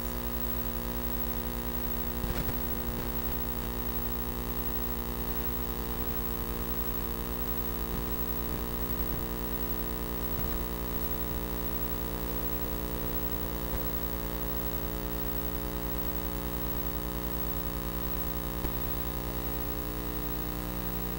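Steady electrical mains hum, a low buzz with many even overtones.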